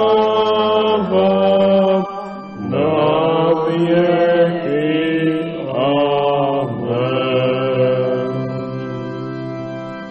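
Slow sung church music with organ: voices hold long notes in phrases with short breaks. Near the end the singing stops and a held organ chord carries on and fades away.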